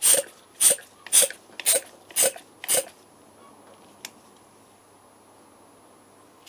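Hand-operated Mityvac vacuum brake bleeder being pumped: six quick strokes, about two a second, then it stops. It is drawing brake fluid and air bubbles out through the motorcycle's rear caliper bleed nipple.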